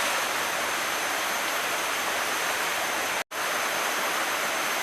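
Steady rushing noise of water, even and without pauses, breaking off for an instant about three seconds in.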